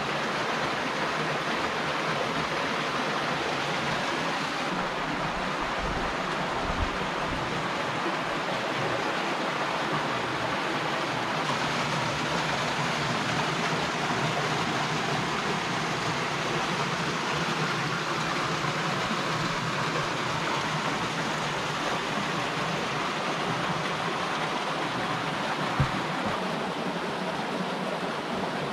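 Steady rush of running water, even and unbroken, with a faint knock twice.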